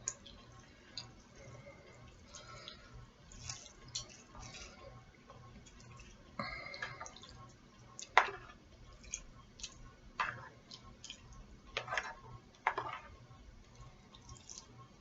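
Noodles being moved from a bowl to a plate: scattered short wet smacks and clicks, a handful of them louder and sharper in the second half.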